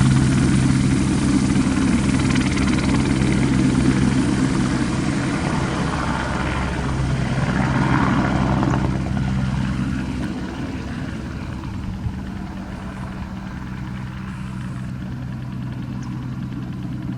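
Airbus AS350 B2 Esquilo helicopter, its rotors and Turbomeca Arriel turboshaft running steadily with a low steady hum, growing fainter about ten seconds in.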